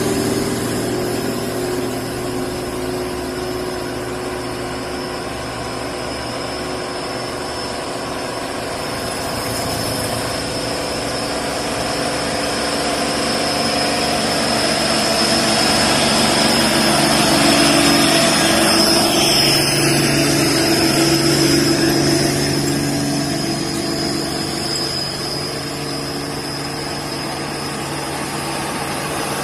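Bus engine working up a hill, growing louder toward a peak about two-thirds of the way through and then easing off, with its pitch shifting as it nears. A steady high-pitched whine runs alongside.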